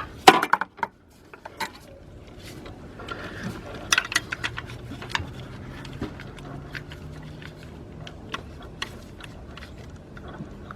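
Metal socket clicking and clinking against the engine as it is worked down onto a spark plug, a string of irregular sharp knocks and taps.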